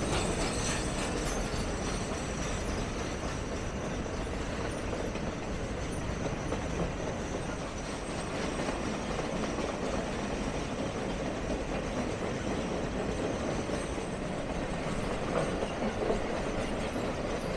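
Triple Crown RoadRailer freight train rolling past at steady speed: continuous wheel-on-rail rumble with a light clickety-clack and a thin, high wheel squeal, clearest near the start.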